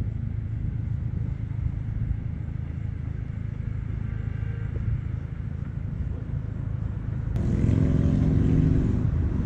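Steady low outdoor rumble. A motor vehicle's engine grows louder about seven seconds in and eases off shortly before the end.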